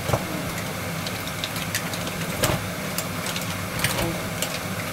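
Mussel shells clattering against each other and the sides of a stainless steel pot as they are stirred with a wooden spoon: scattered irregular clicks. A steady low mechanical hum runs underneath.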